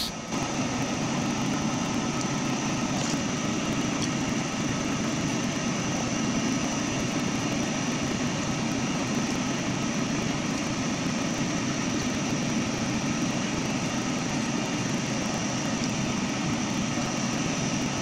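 A steady mechanical whir with a few faint high whining tones running through it, even in level throughout, that cuts off abruptly at the end.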